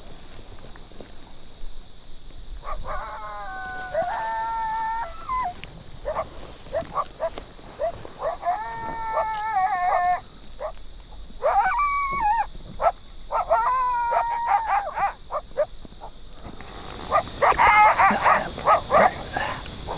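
A group of coyotes howling in long, wavering calls that rise and fall, with voices overlapping. Near the end they break into a fast chorus of yips and barks.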